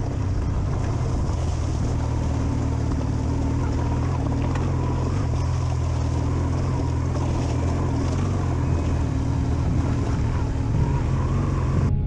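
Onboard adventure motorcycle engine running at a steady cruise, with wind rush over the microphone.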